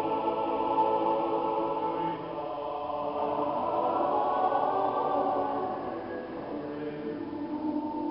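Robed church choir singing long held chords in a large, echoing church.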